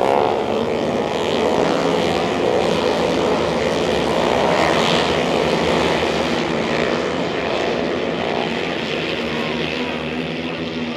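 A pack of single-cylinder flat track race motorcycles running hard around a dirt oval. Their engines make a loud, steady drone of several overlapping pitches, which eases slightly near the end.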